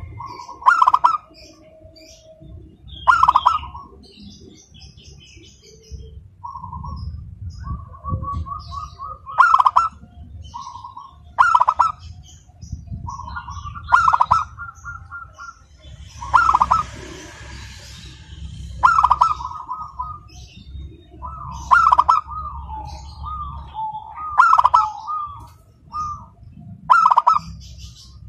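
Zebra dove (perkutut) cooing: loud call phrases repeated about every two and a half seconds, with softer wavering runs of rolling notes in between.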